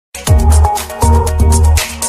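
Electronic music with a deep, heavy kick drum, sustained bass and bright hi-hats over synth chords, starting just after the first moment.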